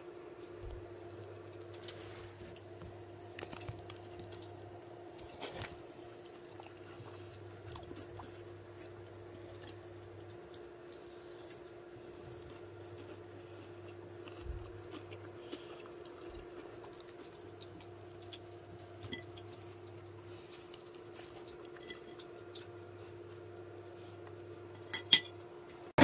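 A steady low hum throughout, with a few soft clinks of a metal fork against a plate during eating, and two sharper clinks near the end.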